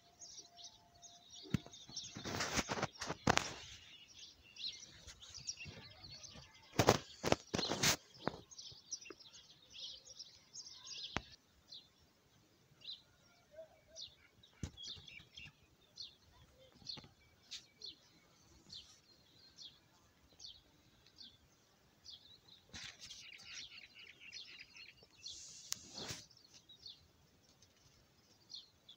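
Small birds chirping repeatedly with short high calls, broken by a few loud bursts of rushing, rustling noise, the strongest about two to three seconds in and again around seven to eight seconds.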